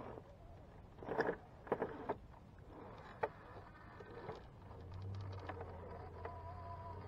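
Axial SCX10.2 1969 Blazer RC rock crawler climbing a rock ledge. Its tyres and chassis knock and scrape on the rock in a few sharp clicks during the first half, and the whine of its electric motor and gears grows steadier about five seconds in as it climbs.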